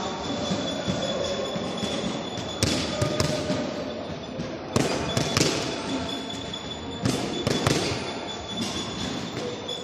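Boxing gloves smacking into focus mitts in quick combinations of about three punches, a combination every two seconds or so, echoing in a large sports hall. A steady high-pitched tone runs underneath.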